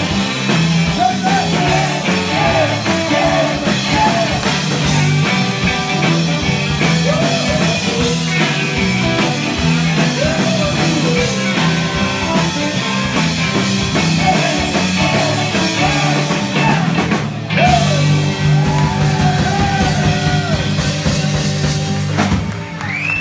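A rock and roll band playing live and loud, with electric guitars over a drum kit and wavering melody lines on top.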